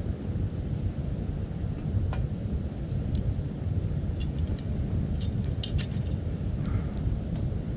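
Wood fire in a small titanium wood stove crackling, with scattered sharp pops and clinks, over a steady low rumble of wind on the microphone.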